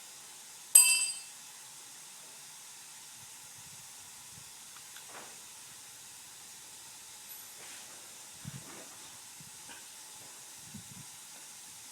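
A single loud, ringing metal strike about a second in as the rear axle of a Kawasaki KLR 650 is knocked through, followed by a few faint knocks and taps over a steady hiss.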